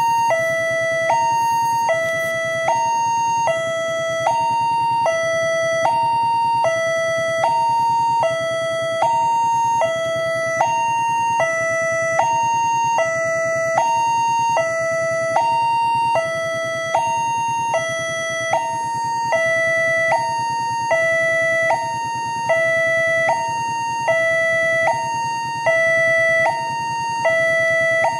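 Electronic railway level-crossing warning alarm sounding a steady two-tone signal, a higher note and a lower note taking turns about once every second and a half. It sounds while the crossing barrier is down, warning road traffic of an approaching train.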